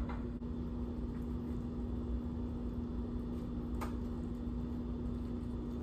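Steady low electrical hum with faint handling of flour tortillas being rolled, and one small click about four seconds in.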